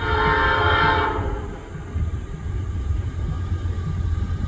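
Air horn of an approaching Norfolk Southern diesel locomotive sounding one short blast of several notes at once, cutting off about a second in, over a steady low rumble.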